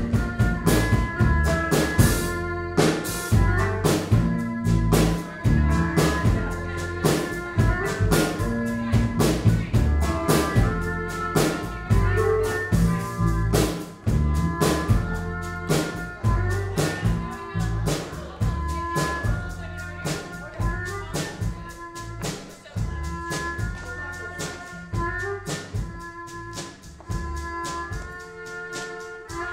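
A live band playing: bowed cello, electric guitar and upright bass over a steady drum beat. The music gets gradually quieter toward the end.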